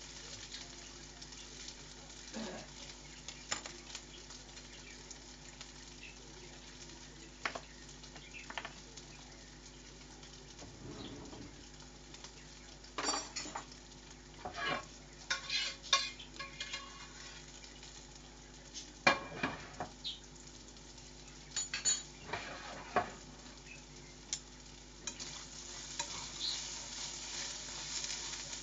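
Food sizzling in a pan over a steady low hum, with scattered clinks and clatters of dishes and cutlery, busiest around the middle.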